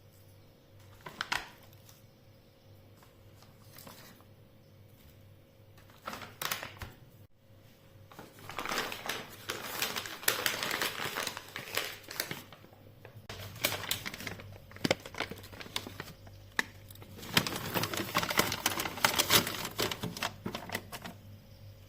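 Rustling and crinkling of materials being handled, with a few sharp clicks. Two spells of dense crinkling come in the second half.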